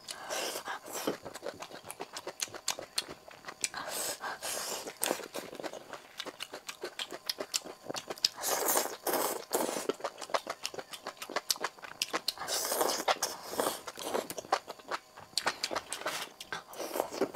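Close-miked eating of sauce-coated skewered vegetables and enoki mushrooms: a steady run of small wet chewing clicks and crunches, with a longer slurp about every four seconds.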